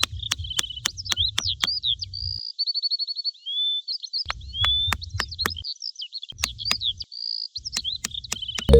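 Small birds chirping and singing in quick trills and short whistled phrases, with many sharp clicks or taps in between and a low rumble that comes and goes.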